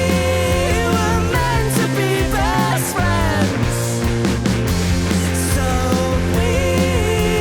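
Indie rock band playing live: electric guitars, bass and drums, with guitar lines bending and sliding in pitch over held bass notes.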